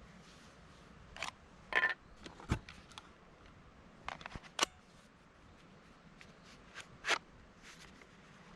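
Irregular clicks and clacks of hard parts being handled and fitted together, with a duller knock about two and a half seconds in.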